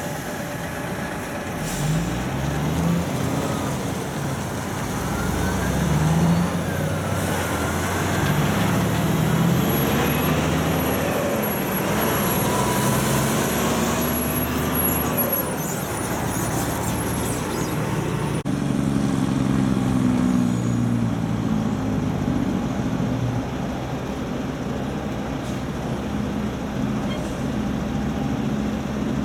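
Diesel engines of loaded logging trucks pulling trailers, working hard as they pull away, the engine note rising in pitch and dropping back several times as they go up through the gears. About two-thirds of the way through the sound changes abruptly and another truck engine carries on.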